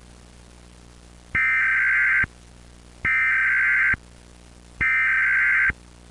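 Emergency Alert System header data tones: three identical harsh digital bursts, each just under a second long with short gaps between, over a faint steady hiss.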